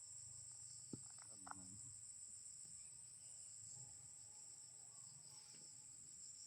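Crickets trilling in a steady, high-pitched chorus, with a couple of faint knocks about a second in.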